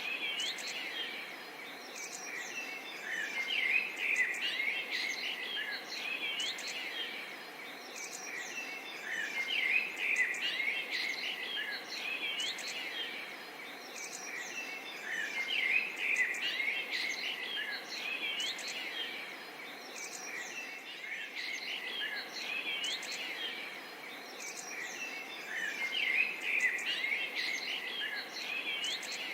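A chorus of many birds chirping and calling, with quick rising and falling notes, swelling and fading in waves every several seconds over a steady background hiss.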